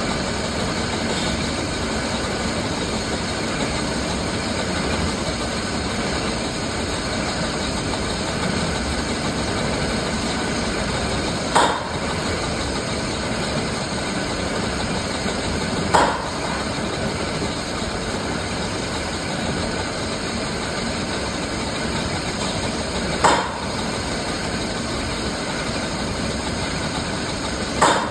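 Lathe running steadily while turning mild steel with a 5 mm cut, with four sharp clicks spread through the cut.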